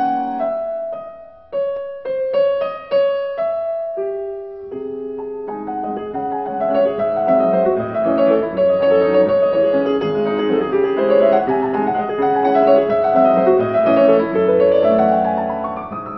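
Piano music: a few separate notes in the first seconds, then from about five seconds in a flowing passage of many overlapping notes, closing with a quick rising run.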